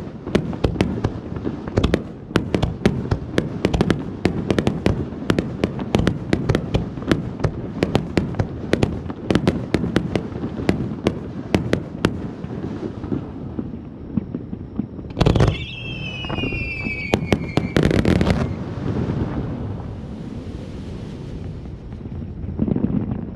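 Fireworks going off: a dense, rapid run of sharp crackling pops that thins out after about twelve seconds. Then comes a loud whistle of about three seconds that falls slightly in pitch.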